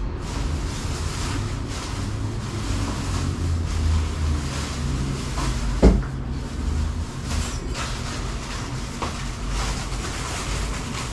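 Steady low rumble with rustling as a shopping bag is rummaged through, and one sharp knock about six seconds in.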